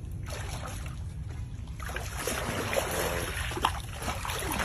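Pond water sloshing and splashing as an American alligator lunges up for meat held out to it and then swims about beside a man wading waist-deep, over a steady low rumble. There is one brief sharp tap a little past halfway.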